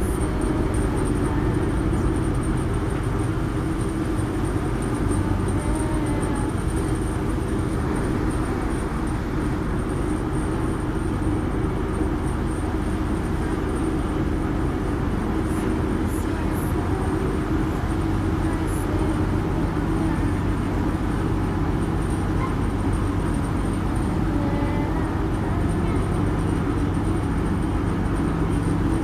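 Steady drone of a harbour ferry's engine heard on board, a low even hum with noise over it that does not change.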